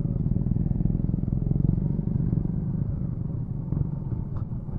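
Suzuki motorcycle engine running at low speed, heard from the rider's seat as a steady low rumble that eases off slightly near the end.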